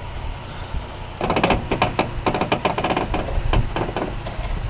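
A truck's engine rumbling low while, from about a second in, a run of irregular crunches and cracks comes from the stuck truck's tyre and underbody grinding on rock, stones and soft dirt.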